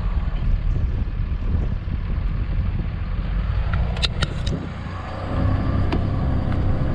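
A vehicle driving along a snow-covered road: a steady low engine and tyre rumble, with a few sharp clicks about four seconds in and another near six seconds.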